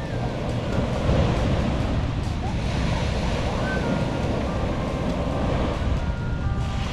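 Sea waves washing onto a sandy beach, a steady rushing wash, with wind blowing across the microphone.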